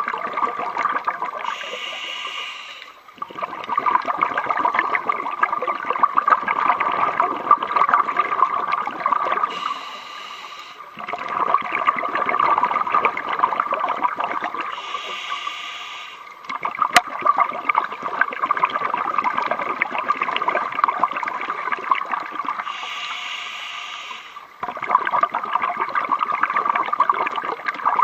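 A scuba diver breathing through a regulator, heard underwater. There are four short inhalations, about seven seconds apart, and each is followed by a long crackling rush of exhaled bubbles.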